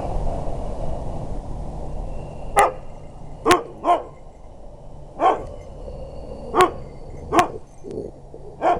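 Husky barking: about seven short, sharp barks at uneven spacing, starting about two and a half seconds in, over a steady low rumble.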